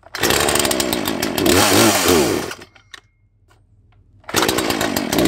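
Old Craftsman two-stroke gas chainsaw firing up and revving for about two and a half seconds, then stopping, then firing again briefly near the end. It will not keep running, which the owner puts down to trouble with its carburettor and choke.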